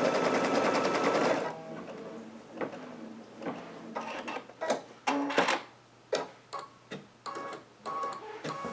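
Brother Luminaire embroidery machine stitching with an even, rapid rhythm, stopping about a second and a half in. Short clicks and brief tones follow at irregular intervals.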